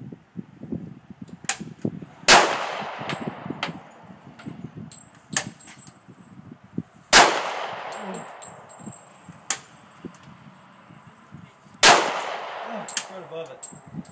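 Semi-automatic pistol fired three times, about five seconds apart, each shot loud with a long echoing tail. Fainter sharp cracks fall in between, and a faint high ring follows some shots, typical of steel targets being hit.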